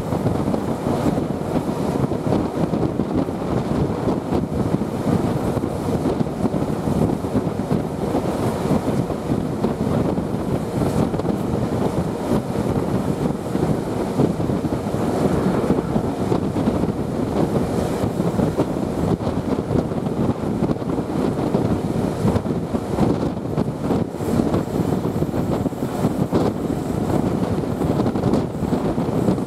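Steady wind rushing over the microphone, with the running noise of a passenger train travelling at speed, heard from an open coach window.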